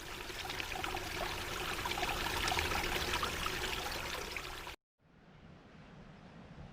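Stream water babbling, cut off suddenly after about four and a half seconds; after a brief silence, faint outdoor ambience follows.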